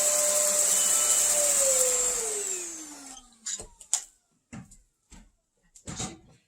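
Cordless stick vacuum running with a steady high whine, then switched off about a second and a half in, its motor pitch sliding down as it spins down. A few short knocks and clicks follow.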